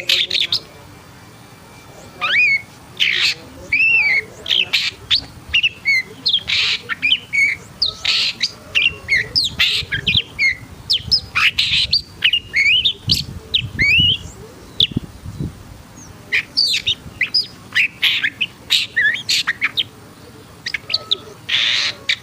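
Shrike (pentet) singing in an agitated, fired-up state: a rapid string of short whistles and quick up-and-down chirps mixed with harsh, scratchy notes, delivered in bursts with brief pauses.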